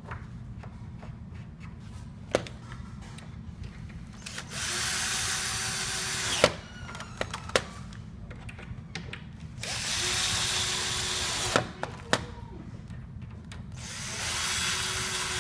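Power drill-driver running in three bursts of about two seconds each, driving screws into the rails of a trundle bed frame, with sharp clicks and knocks between the bursts.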